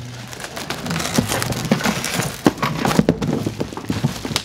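Plastic wrapping crinkling and a cardboard box scraping and knocking as a pressure washer is worked out of its packaging, with many irregular sharp clicks and crackles.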